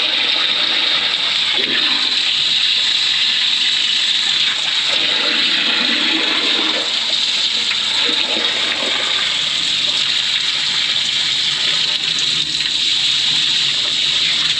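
High-pressure drain jetter blasting water around the inside of a manhole: a loud, steady rush and hiss of water spray.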